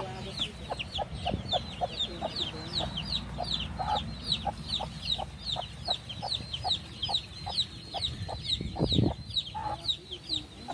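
Domestic chicks peeping steadily, a rapid run of high, short falling peeps about four a second, with a mother hen clucking softly and repeatedly to them.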